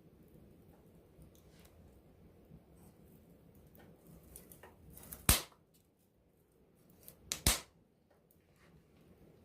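Campfire burning with faint crackling and two sharp, loud pops from the burning wood, about two seconds apart, a little past the middle.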